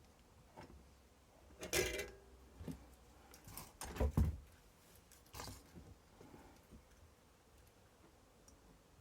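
Scattered workbench handling noises, knocks and small rattles of parts and tools being picked up and set down. The loudest, a knock with a dull thump, comes about four seconds in; there is a rattle about two seconds in and a lighter knock a little after five seconds.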